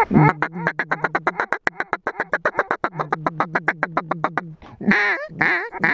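Mallard duck call blown in a fast feeding chatter of short quacks, about eight a second, for some four seconds, then a few longer, louder quacks near the end, calling in approaching mallards.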